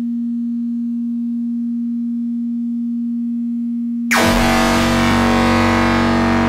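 Electronic synthesizer holding a single steady low drone tone. About four seconds in, a dense wall of harsh synthesized noise with layered drones cuts in abruptly and louder.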